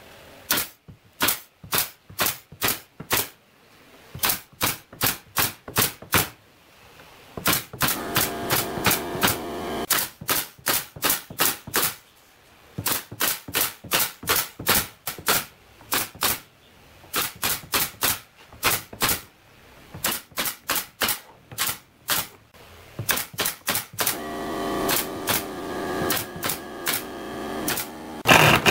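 Pneumatic nail gun firing in quick runs of shots, about three a second, with short pauses between runs, fixing pine slats to a frame. About a second before the end, a louder steady whirr of a power drill starts.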